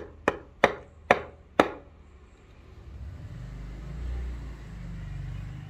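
Five sharp knocks in quick succession as the axe head is driven down onto its new wooden handle, seating it. From about three seconds in there is a low rumble.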